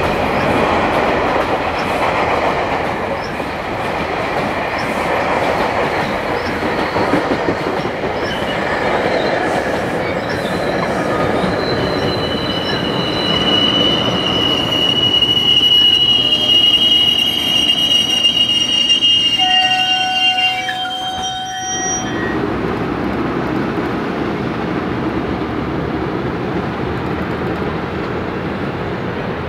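A train passing on the rails with a steady rumble from its wheels. A high wheel squeal joins about a third of the way in and holds for about ten seconds. About two-thirds of the way in the sound changes abruptly to a duller steady rumble.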